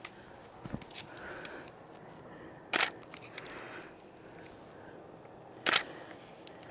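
Two shutter releases of a Canon 5D Mark III DSLR, each a single sharp click, about three seconds apart.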